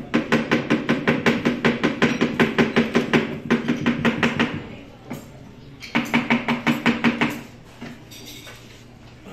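Kitchen knife chopping fast on a cutting board, about six to seven strokes a second: a long run of about four and a half seconds, then a shorter run about six seconds in.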